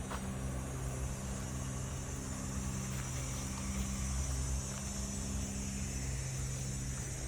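A motor running steadily with a low, even hum, under a constant high hiss.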